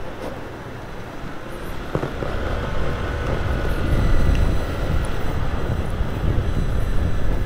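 Low rumble of a vehicle on the move with wind on the microphone, growing louder about two seconds in, with a faint thin whine in the middle.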